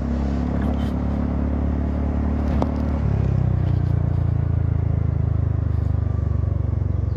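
Honda Forza 300 scooter's single-cylinder engine running steadily on the move, through a Chinese copy aftermarket exhaust freshly repacked with fiberglass wool. Its low tone changes about three seconds in.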